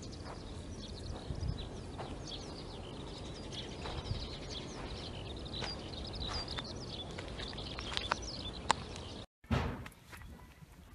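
Outdoor background of steady low noise with small birds chirping again and again, and a few short sharp clicks, one louder snap near the end. After a brief dropout a quieter, different background follows.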